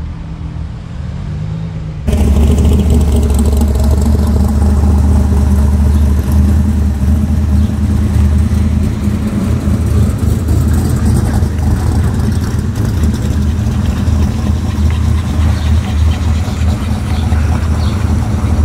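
Classic Mopar cars driving slowly past one after another, their engines and exhausts rumbling with a steady low note. The sound is quieter for the first two seconds, then suddenly much louder.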